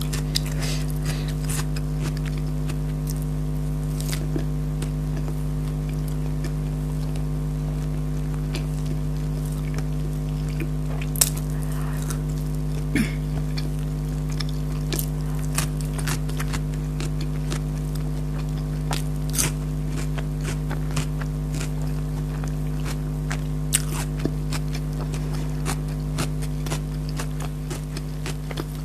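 Close-miked eating sounds: chewing with scattered crunches, squishes and small clicks, the sharpest about eleven seconds in, over a steady low hum.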